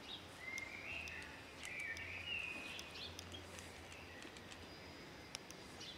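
Small birds chirping and twittering over a low steady outdoor hum, strongest in the first half, with scattered faint clicks.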